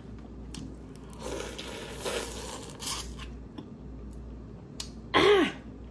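Boiled crawfish shell cracking and tearing as it is pulled apart by hand, with scattered clicks and some wet squishing. A short hummed vocal sound about five seconds in.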